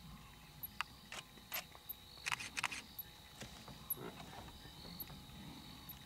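Quiet night ambience with no roar: scattered sharp clicks and ticks, bunched together around the middle, over a thin steady high tone and faint brief high chirps.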